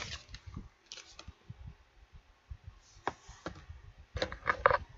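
Computer keyboard keys tapped at irregular intervals, mixed with low knocks, with a quick cluster of clicks near the end.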